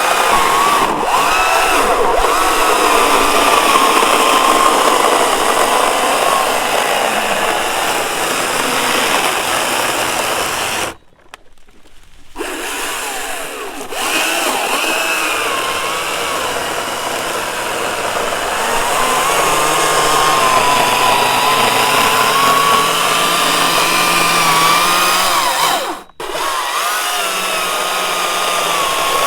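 Greenworks commercial cordless battery chainsaw running and cutting through a branch: a high electric-motor whine over chain noise, wavering in pitch as the chain meets the wood. It stops for about a second roughly eleven seconds in and cuts out again for a moment near the end.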